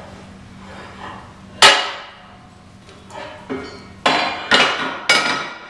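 Sharp metallic knocks and clanks as a heavy metal pump adapter is handled on a steel workbench: one loud clank about one and a half seconds in, then a quick run of four or five more in the second half.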